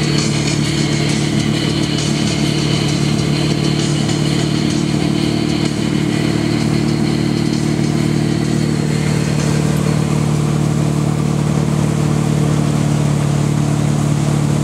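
Inboard engine of a 2006 Centurion T5 wake boat running steadily at wakesurf towing speed, with the rush of its churning wake underneath.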